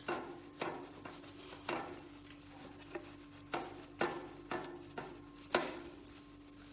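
A degreaser-soaked cloth being pulled back and forth between the cogs of a bicycle cassette: a series of short, sharp rubbing strokes, about ten, at an uneven pace.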